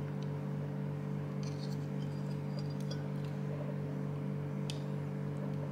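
Faint small plastic clicks and ticks of a Bluetooth cable connector being pushed into the white header of a PCIe Wi-Fi card, a cluster of them in the middle and one more near the end, over a steady low hum.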